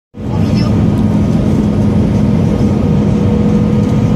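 Steady cabin noise inside an Airbus A320 airliner: a loud, even low rumble of engines and airflow with a faint steady hum running through it.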